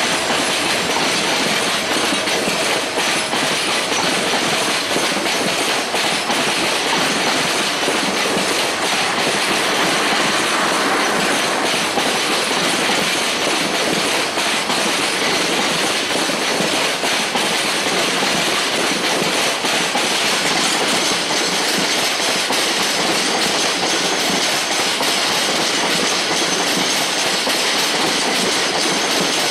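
Passenger coaches of the Upaban Express intercity train rolling past close by. The steady, loud noise of steel wheels on the rails is broken by clicking as the wheels cross rail joints.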